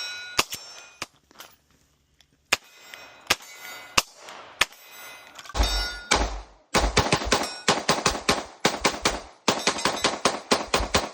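Glock 17 pistol with a ported barrel firing: a few scattered single shots, then from about seven seconds in a rapid string of shots, five or six a second, that pauses briefly near nine and a half seconds and then carries on. This rapid emptying of the magazine is a mag dump. Metallic ringing lingers after some of the shots.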